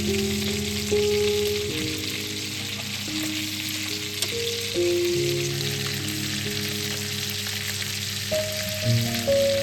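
Food frying in a pan, a steady sizzling hiss, over background music with slow held notes.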